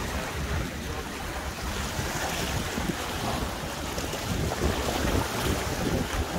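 Surf washing against shoreline rocks, with wind buffeting the microphone in a steady low rumble.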